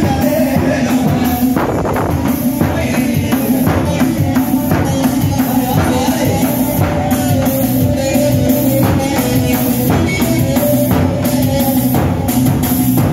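Live halay dance music: a davul, the large double-headed bass drum, beating a steady rhythm under a melody line moving over a held low drone.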